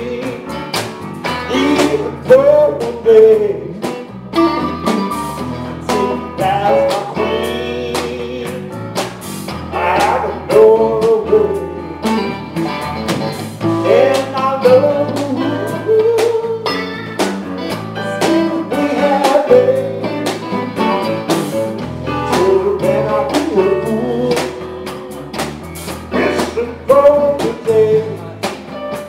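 Live blues band playing: guitar over bass guitar, drums and keyboards. A melody line bends in pitch over steady bass notes and regular drum hits.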